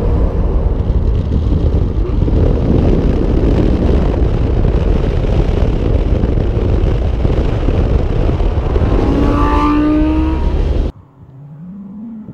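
Loud rushing wind and road noise from a moving car, with the 2009 Lamborghini Gallardo LP560-4's V10 rising in pitch as it accelerates about nine seconds in. The sound then cuts to a much quieter stretch, where the engine is heard faintly, rising in pitch again as it pulls away.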